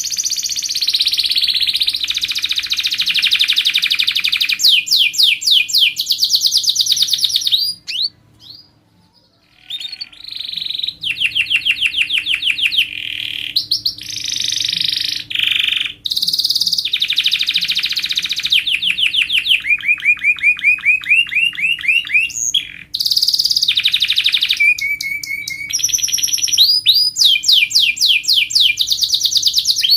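Domestic canary singing vigorously: long, very rapid trills and rolls that switch from one phrase type to the next, with a brief pause about eight seconds in.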